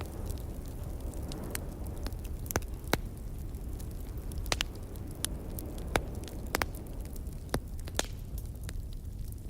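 Log fire crackling, with sharp pops every second or so over a steady low rumble of wind.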